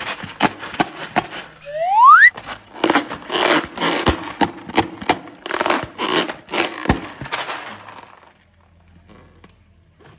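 Slime being squished and squeezed out of a balloon, a dense run of wet crackling clicks that stops about eight seconds in. A short, loud rising squeak cuts in about two seconds in.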